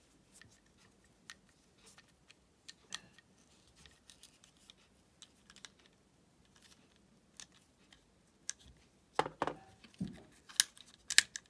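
Small screwdriver turning a tiny screw into a plastic flip key fob shell: faint scattered ticks and scrapes of the tool in the screw head. Louder plastic clicks and knocks come near the end as the fob is handled.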